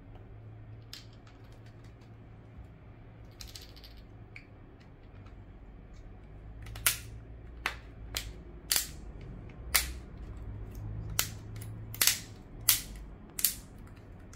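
Plastic back cover of a Samsung Galaxy A20e snapping onto the phone's frame as it is pressed down along the edges: about nine sharp clicks in the second half, irregularly spaced, as the cover's clips catch one by one.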